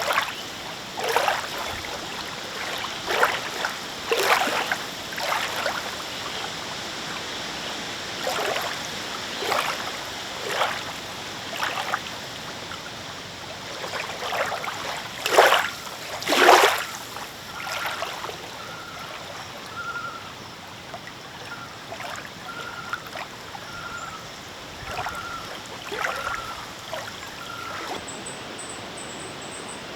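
Small wind-driven waves lapping and splashing at the lake's edge in irregular swells every second or two, the loudest two about halfway through. Through the second half a bird repeats a short single-pitched note about once a second, and near the end a high, rapid bird chirping starts.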